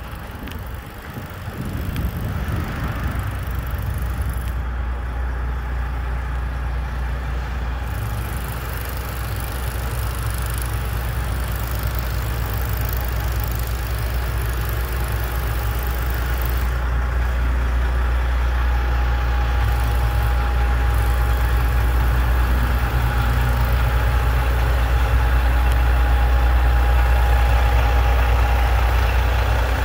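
Peterbilt 389 semi truck's diesel engine running at low speed, a steady low-pitched sound that grows gradually louder as the truck draws near. A thin steady whine joins in about halfway through.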